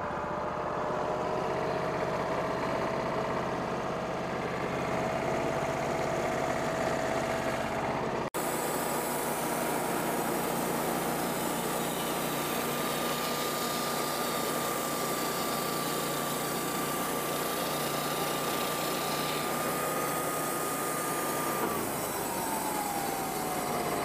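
Wood-Mizer portable band sawmill running steadily and sawing through a black walnut log, its engine humming under a high, even whine. The whine drops in pitch near the end, and the sound cuts out for an instant about 8 seconds in.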